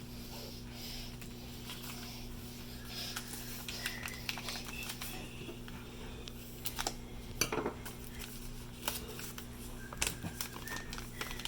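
Scattered light clicks, taps and clinks from hands handling an opened mail parcel and its small contents, over a steady low hum.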